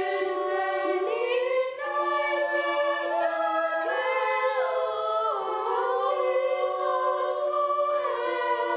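Boys' choir singing unaccompanied in high voices, long held notes moving up and down in steps.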